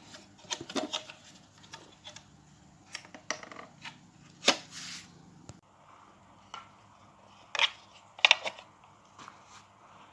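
The plastic casing of a TP-Link CPE220 outdoor wireless unit is handled and worked open with a tool, making scattered plastic clicks and knocks. There is a sharp click about halfway with a brief rustle after it, and a few louder knocks near the end.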